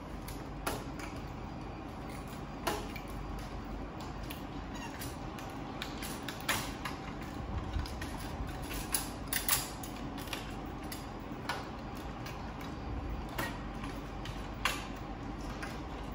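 Irregular clicks and knocks of parts of a Ricoh MP C306 multifunction printer being handled during disassembly, over a steady low hum. The loudest knocks come in a quick cluster a little past the middle.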